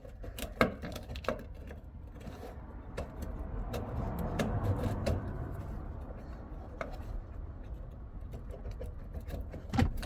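Scattered light clicks and knocks as a replacement fuel tank lift pump unit is handled and worked into its seat, being turned to line it up with the tank, with a louder knock near the end, over a low background rumble.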